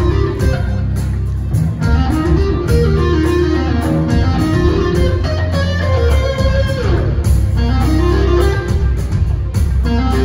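Rock band playing live and loud: electric guitar leads over bass guitar and drums.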